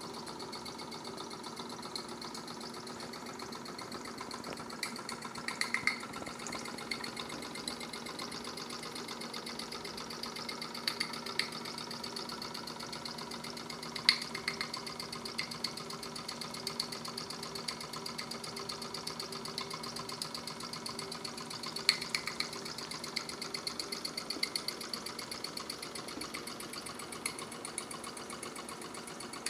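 Mamod live-steam model traction engine running, its small steam cylinder beating fast and evenly, with a few sharper clicks along the way.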